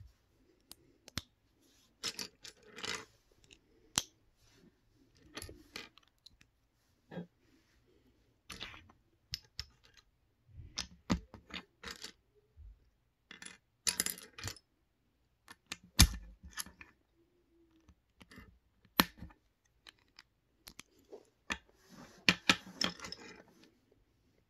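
LEGO bricks and Technic parts clicking and clattering as they are handled, pressed together and set down on a tabletop: scattered sharp plastic clicks with a few busier stretches of rattling, the loudest click about two-thirds of the way through.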